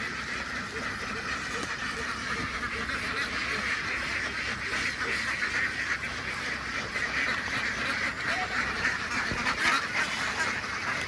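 A large flock of domestic ducks quacking all at once in a dense, steady chorus.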